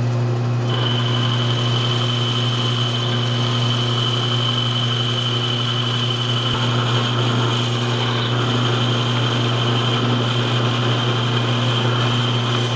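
Metalworking machine tool running steadily: a motor hum with a steady high whine over it. It cuts off abruptly at the end.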